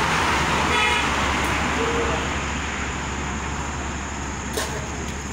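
Road traffic passing, loudest in the first two seconds and then easing off, with a short vehicle horn toot about a second in.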